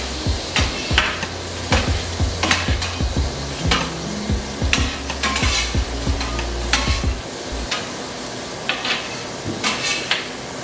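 Sliced steak frying on a metal stovetop griddle pan, with a steady sizzle and repeated sharp scrapes and taps of a metal spatula working the meat across the pan.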